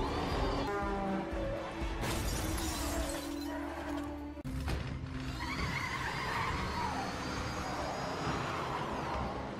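Film soundtrack mix of music and car sound effects, with a burst of crashing, shattering noise about two seconds in and a sudden change in the mix partway through.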